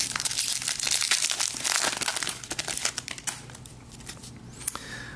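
Crinkling and rustling of a foil trading-card pack wrapper as hockey cards are handled, dense for the first few seconds and then dying down.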